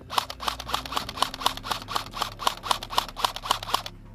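G36 airsoft electric rifle firing a rapid string of single shots, about four a second, around fifteen in all, stopping shortly before the end.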